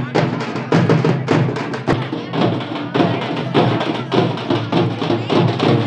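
Drums beaten in a fast, steady rhythm of about three to four strokes a second, over a dense, pitched musical layer, with crowd voices mixed in.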